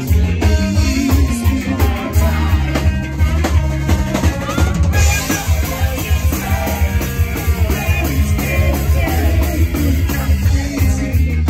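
Live band playing loud: drum kit on a steady beat under bass and electric guitar.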